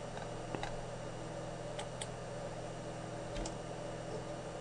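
A few faint, separate computer mouse clicks, made while selecting an object on screen, over a steady low electrical hum.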